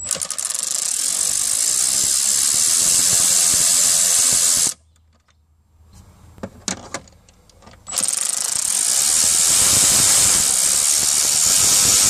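Cordless ratchet with a swivel socket running to back out two 7 mm dash-bezel screws. It runs steadily for about four and a half seconds, stops for about three seconds while a few clicks are heard as the socket is moved to the second screw, then runs again for about four seconds.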